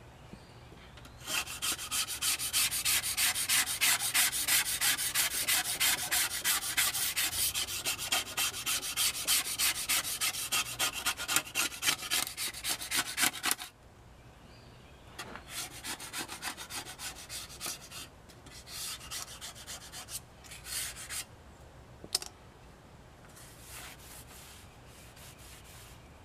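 Razor blade scraping rust and grime off the steel plate of an old handsaw in rapid back-and-forth strokes. The strokes run steadily for about twelve seconds, then come in lighter, shorter runs, with one sharp click near the end.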